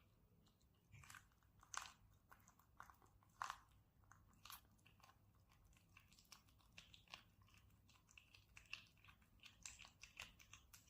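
Kitten chewing fish, with irregular short crunches and wet bites.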